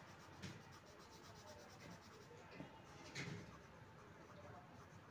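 Faint scratching of a coloured pencil shading on drawing paper, with a soft tap about half a second in and another about three seconds in.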